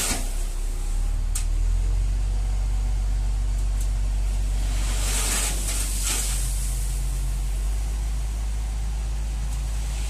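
FAW J6P dump truck's diesel engine running with a steady low drone while the raised tipper body unloads aggregate. Two short bursts of hiss come about five and six seconds in.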